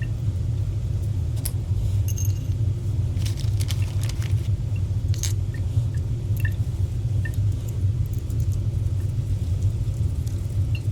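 Steady low rumble with scattered light metallic clicks and clinks as the Watts 009 relief valve's parts are handled and fitted.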